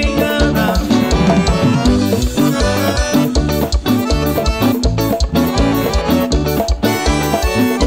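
Live lambadão dance-band music, instrumental, with a drum kit keeping a steady fast beat under guitar and other pitched instruments.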